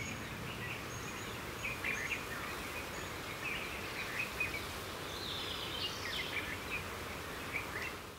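Outdoor ambience: a steady hiss with many short, scattered bird chirps and calls.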